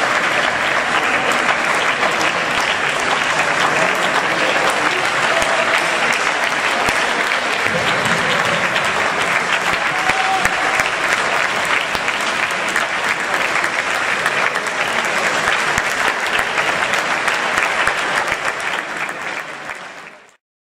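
Audience applauding, a dense steady clatter of many hands clapping, fading out near the end.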